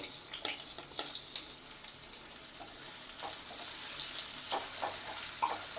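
Hot mustard oil sizzling and crackling in a kadai with a tempering of dry chilli, bay leaf and cumin, the stage at which the onions go in. Scattered crackles run through the sizzle, with a few light taps near the end.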